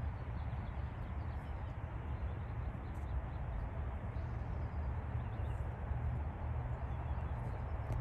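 Steady outdoor background noise, mostly a low rumble, with a few faint, short, high chirps now and then.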